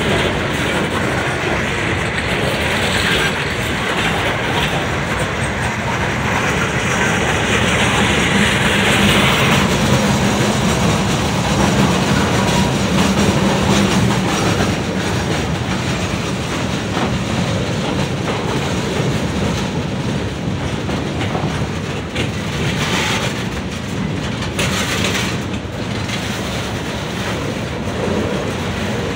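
Freight cars of a CSX mixed freight train rolling past close by: steel wheels running over the rails in a steady, loud rolling noise, with a few brief stretches of higher-pitched wheel noise.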